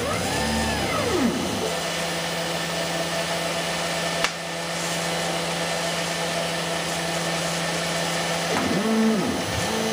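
OX CNC router running: its stepper motors whine in a rising-then-falling sweep near the start and again near the end as the carriage moves, over a steady whirring hum from the machine. A single sharp click about four seconds in.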